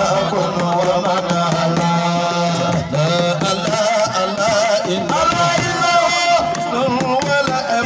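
Male voices singing an Islamic praise song through microphones: a lead line with wide vibrato and long held notes, a low held note beneath it for the first three seconds, and a light percussive beat.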